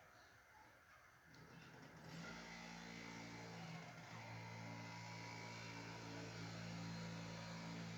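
Faint steady mechanical hum of a running engine or motor. It sets in about a second and a half in and holds a constant pitch from about two seconds on.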